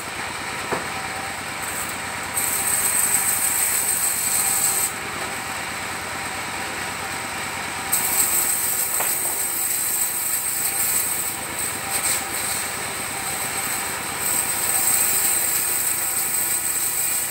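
Engine-driven circular sawmill ripping coconut wood into long strips. The blade gives a loud high-pitched whine while it is in the wood, in three cutting passes of a few seconds each. Between passes the saw runs free, quieter and lower.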